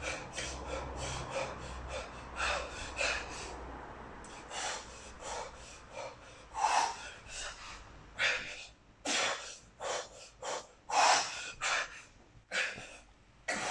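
A man breathing hard while snatching a 32 kg kettlebell, with short forceful exhales about one a second that grow louder and sharper in the second half.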